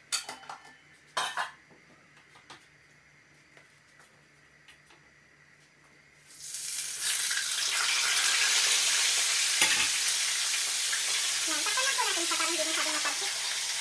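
Food frying in hot oil in a pan on a gas stove: the sizzle starts about six seconds in and then runs on steadily and loud. A couple of light dish clatters come near the start.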